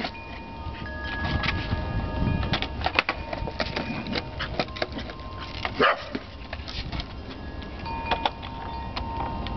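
Skateboard wheels rolling with a low rumble, broken by sharp clacks of the board as tricks are tried. A short, loud cry about six seconds in.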